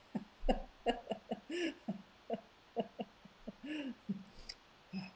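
A woman laughing: a long run of short breathy bursts, some with a rising-then-falling pitch.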